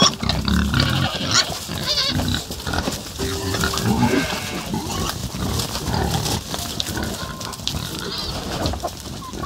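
Several pigs grunting and squealing in a busy jumble of short calls as they crowd around buckets of feed.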